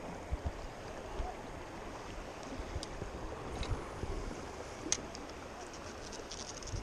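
Shallow river water rushing and lapping around a wading angler, with irregular low thumps and a few light clicks about three and five seconds in.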